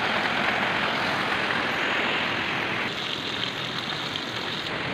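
Rushing stream water over rocks with hands splashing in the water. About three seconds in, the rushing becomes softer and thinner.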